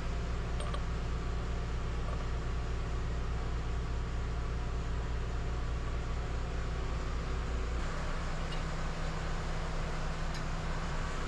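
Steady low mechanical hum of running machinery, its low drone shifting about eight seconds in.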